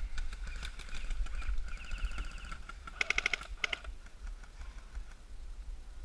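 Airsoft rifle fire: a short rapid burst of clicking shots about three seconds in, with other quick runs of clicks around it. A low rumble of wind and handling noise on the camera sits underneath.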